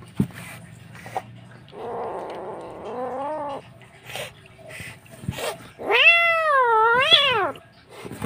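Frightened wild black-and-white kitten yowling defensively as a hand touches it: a harsh cry about two seconds in, then a long, loud wailing yowl that rises and falls about six seconds in.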